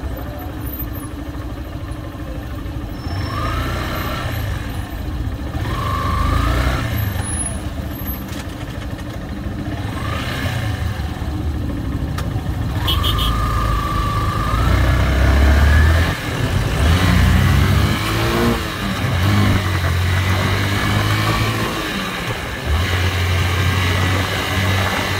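Motorcycle engine heard from the rider's seat in city traffic, running slowly at first, then revving up with several rising sweeps in pitch as it pulls away after about 16 seconds. A few short rising whines come and go in the first half, with other traffic around.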